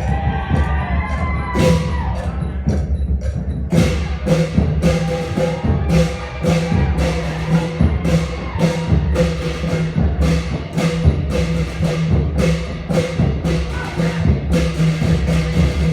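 Thai klong yao long-drum ensemble playing a traditional rhythm, with drums and cymbals striking on a steady beat of about two strokes a second. The cymbal strokes thin out briefly a couple of seconds in, then the full beat resumes.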